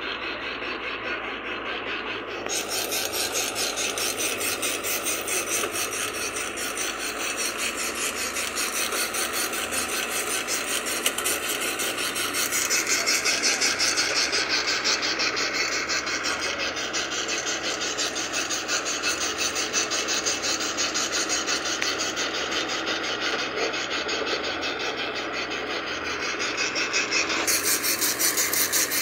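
Engine of an old Toyota stake-bed truck labouring through mud, a harsh, rapid rasping pulse that grows louder about halfway through and again near the end.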